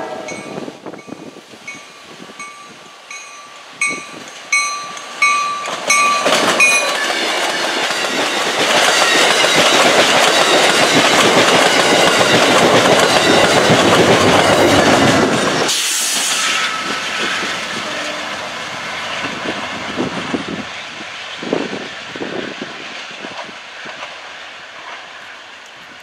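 Grade-crossing bell ringing about twice a second as an Amtrak Downeaster passenger train approaches, then the train passing close at speed: loud wheel-on-rail noise with clickety-clack over the rail joints, which cuts off suddenly about 16 seconds in, leaving a quieter distant train rumble with a few knocks.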